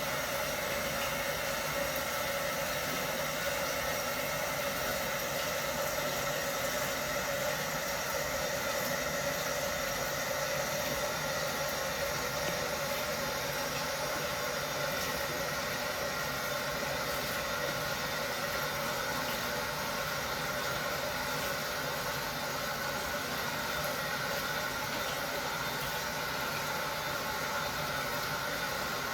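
Steady hum and hiss of a constant machine-like noise, unchanging throughout.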